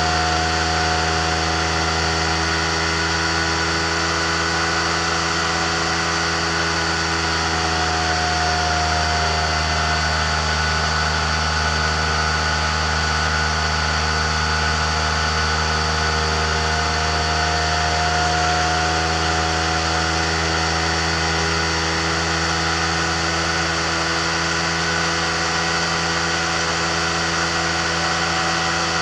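Amphibious microlight trike's engine and pusher propeller running steadily in level flight, with only slight rises and falls in pitch.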